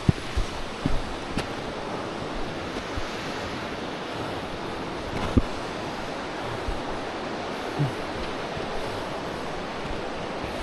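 Steady rushing of a waterfall, with a few short low knocks, the sharpest about five seconds in.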